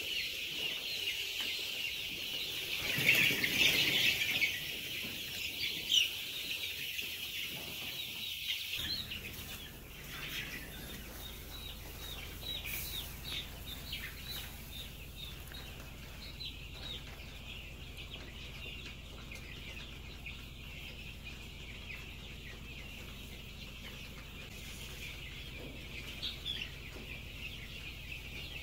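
A large flock of young Australorp and Rhode Island Red chickens peeping and cheeping continuously, many high calls overlapping, with a louder burst of calls about three seconds in.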